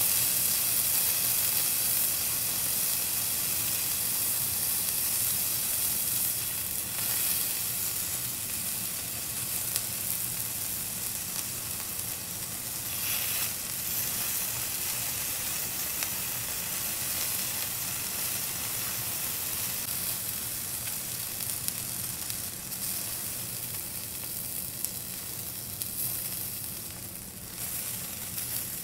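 Liver kebab skewers with tomato and chilli sizzling steadily on a hot griddle pan while a brush bastes them. The sizzle swells briefly a few times and eases a little toward the end.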